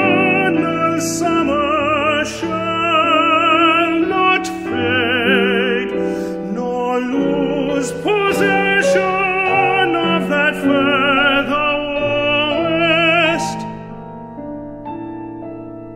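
Tenor singing a classical art song with vibrato over piano accompaniment. About three-quarters of the way through the voice stops and the piano carries on alone, softer.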